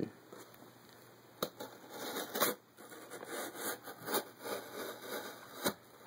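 Kershaw Cryo pocketknife blade cutting and scraping through a cardboard mailing box in irregular rough strokes, with a couple of sharp clicks.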